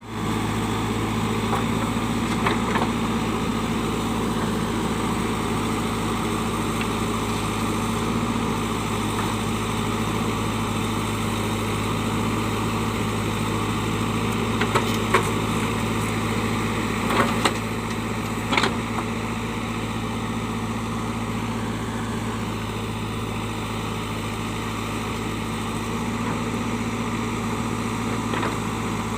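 JCB 3DX backhoe loader's diesel engine running steadily, with a few short knocks and clanks about halfway through.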